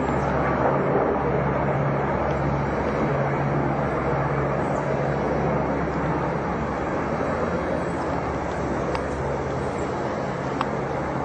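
Helicopter flying overhead: a steady low drone over a rushing noise, slowly fading.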